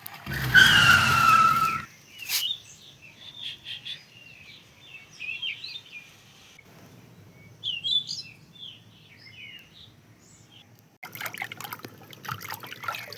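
Birds chirping and twittering in short, scattered calls, faint against the quiet. They follow a loud squeal that falls in pitch in the first two seconds, and near the end they give way to a crackling rustle.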